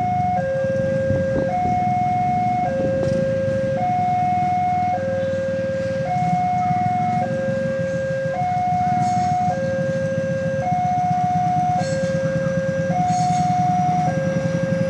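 Level-crossing warning alarm sounding: two electronic tones alternate steadily, each held about a second. Underneath is a low rumble that grows near the end as an electric commuter train draws up to the crossing.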